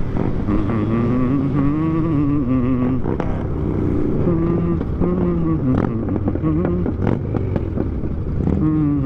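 Motorcycle engine running at low road speed in traffic, its pitch rising and falling gently with the throttle, over a steady low rumble of road and wind noise, with a couple of short clicks about six and seven seconds in.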